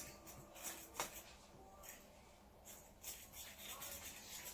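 Faint scraping and tapping of a fork beating eggs into a well of flour for fresh pasta dough, with a few light clicks scattered through.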